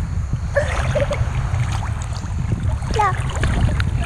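Wind buffeting the microphone, a steady low rumble, with two short high calls, about half a second in and about three seconds in.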